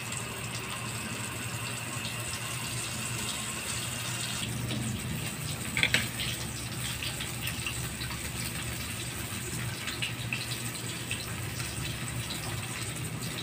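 Flour-coated fish frying in hot cooking oil in a steel wok: a steady sizzle. About six seconds in, a short clink of a fork against a plate.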